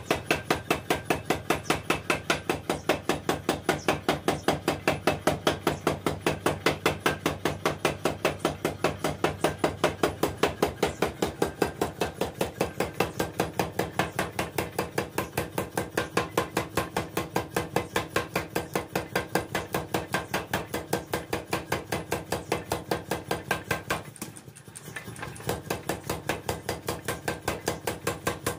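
A 30 kg mechanical power hammer pounding a steel sickle blade on its anvil block, its ram striking in a fast, steady rhythm of several blows a second. The blows pause briefly about 24 seconds in and then start again.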